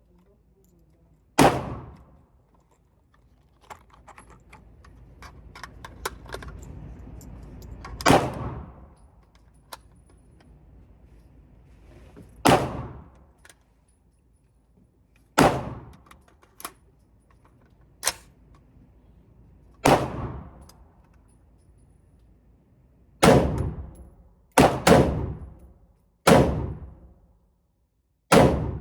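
Gunshots fired one at a time at an unhurried, uneven pace, about eleven in all, each followed by a short ringing echo. Two shots come close together a little before the end.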